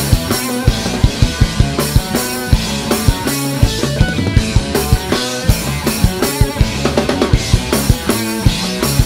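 Rock band playing live: drum kit keeping a steady beat with kick and snare, under electric bass and electric guitar.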